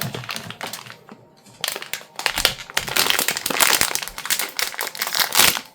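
Crinkly plastic wrapping of a blind-box figure being handled and opened: light rustling at first, then about a second and a half in a dense, loud crackling that stops just before the end.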